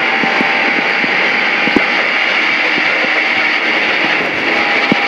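In-cabin engine and road noise of a Peugeot 106 GTi rally car driving on, with scattered clicks and knocks through it. The car is running on a punctured, shredded tyre.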